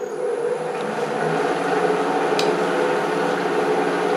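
Wood lathe motor starting up: its hum swells over about the first second as the workpiece comes up to speed, then runs steadily with a faint high whine.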